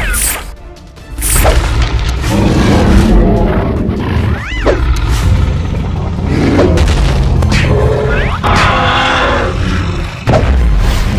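Action-cartoon fight soundtrack: dramatic music under repeated booms and crash impacts, with a few short swooping effects rising and falling in pitch.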